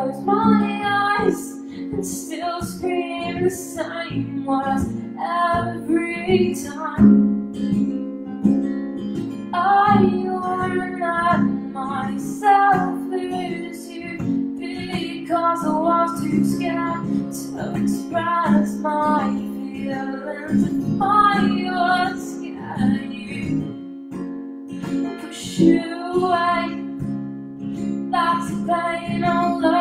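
A woman singing a solo song to her own strummed acoustic guitar, the sung phrases separated by short pauses while the guitar keeps ringing.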